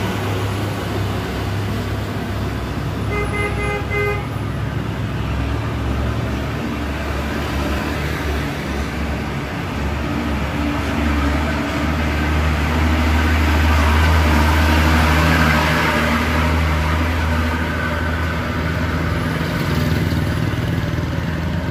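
Heavy diesel dump trucks running past in traffic. A vehicle horn sounds once for about a second, around three seconds in. Later one truck's engine rumble swells as it passes close, loudest about two-thirds of the way through, then eases as it pulls away.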